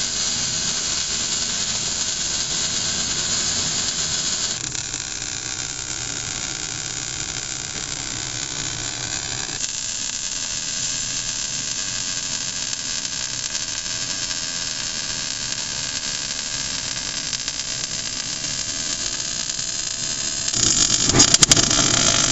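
MAG welding arc on steel, a wire-fed torch shielded with argon and CO2, running with a steady hiss that shifts in tone a few times and turns louder and crackling near the end.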